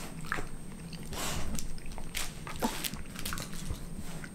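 Quiet eating sounds with a dog close by: chewing, scattered small clicks of a fork against a bowl, and short sniffs as an Australian Shepherd pokes its nose at the food.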